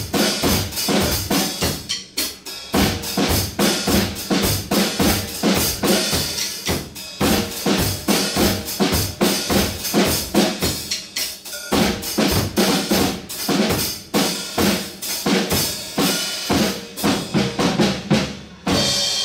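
A red Tama drum kit and a second drum kit played together in a fast drum duet, with dense snare and bass-drum strokes. The playing breaks off briefly about two seconds in and again near twelve seconds. A final accented hit with cymbal comes right at the end and rings out.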